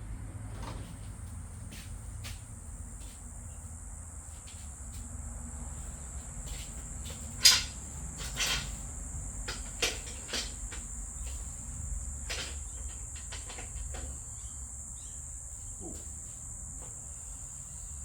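Scattered clicks and knocks of metal being handled, as while working a homemade motorcycle jack, the loudest clank about seven and a half seconds in. Under it runs a steady high-pitched whine.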